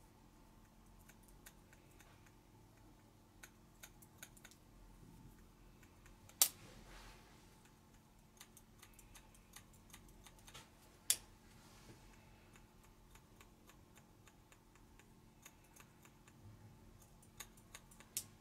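Light clicks and taps at irregular intervals, with two sharp, louder clicks about six and eleven seconds in and a short cluster near the end.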